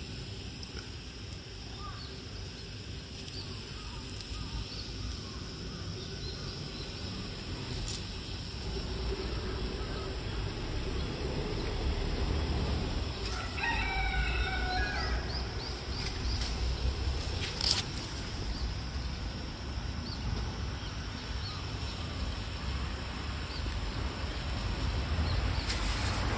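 A rooster crows once about halfway through, a single call of about two seconds. Under it runs a steady low rumble with a few sharp clicks.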